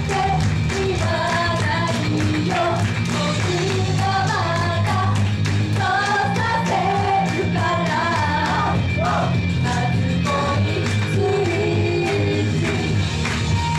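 Two female singers singing a J-pop idol song live into handheld microphones over a recorded backing track with a steady beat.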